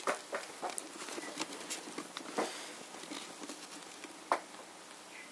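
Kittens' claws scratching and scrabbling on a carpeted, corrugated-cardboard scratching ramp as they climb and wrestle: soft, irregular scratches and taps, with one sharper tap about four seconds in.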